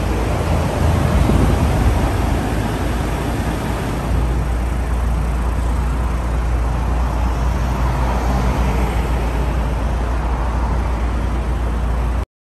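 Turbocharged 4G63 four-cylinder of a Mitsubishi Lancer Evolution VI Tommi Mäkinen Edition idling steadily through its sports muffler with a large-diameter tailpipe. It swells slightly about a second in and stops abruptly near the end.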